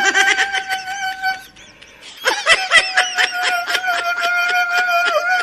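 Husky-type dog howling on one held note, the howl chopped into rapid pulses as a hand works its muzzle. The howl breaks off about a second and a half in, then starts again at the same pitch about two seconds in.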